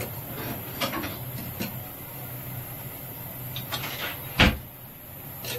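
Kitchen clatter: a few light knocks and one louder thump about four and a half seconds in, over a steady low hum.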